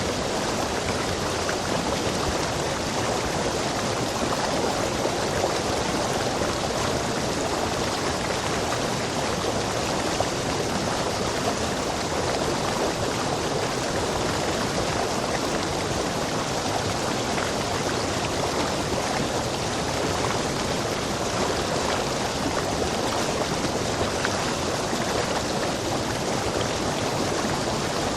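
Stream water rushing over rocks, a steady, even rush with no change throughout.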